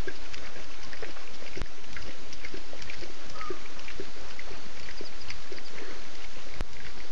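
Lions lapping water at a waterhole: a steady run of overlapping wet laps and small splashes. Two sharp clicks cut in, one early and one near the end.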